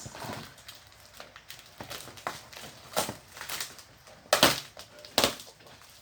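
Packing material and cardboard being handled as a shipping box is opened: scattered crinkling and scraping, with two loud, sharp ripping or scraping noises, one a little past four seconds in and one at about five seconds.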